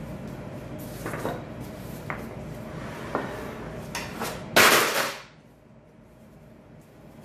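Kitchen utensils handled on a countertop: a few light knocks and taps of a bowl and wooden rolling pin, then a louder brief scrape or rustle about four and a half seconds in. A steady low background hum drops away just after it.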